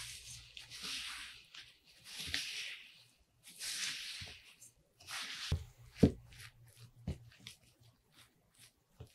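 A silicone spatula stirs shredded coconut through egg white and sugar in a glass bowl. Four rustling, scraping strokes come about every second and a half, and then a couple of sharper knocks and shorter, quieter pressing sounds follow in the second half.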